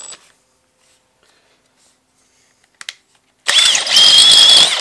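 Makita XPH07 cordless brushless hammer drill, set to hammer mode at speed two, starting up about three and a half seconds in and drilling into a concrete block: a loud hammering rattle with a high, steady motor whine over it.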